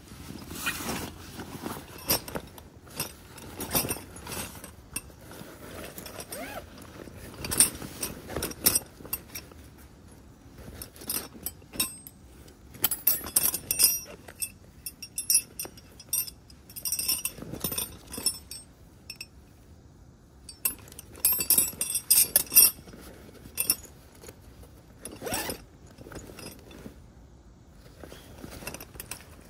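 Camping gear being handled in a canvas duffel bag: fabric rustling and scraping, with irregular clinks and jangles of metal gear, busiest in two clusters in the middle and about three-quarters of the way through.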